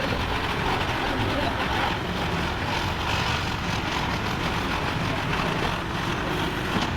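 Massey Ferguson tractor running steadily, its engine and drivetrain making a loud, even noise.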